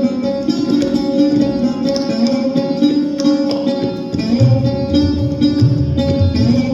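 Hindustani classical instrumental music: plucked melody strings (sitar) over a steady drone, accompanied by tabla, with deep bayan strokes that bend in pitch in the second half.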